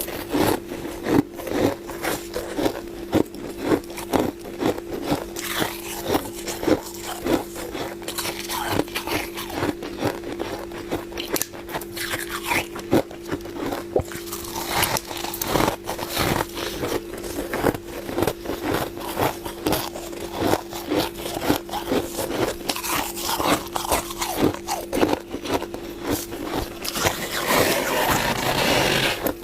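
Close-up crunching and biting of freezer frost, many crisp irregular crunches one after another, with a longer rasping stretch near the end. A steady low hum runs underneath.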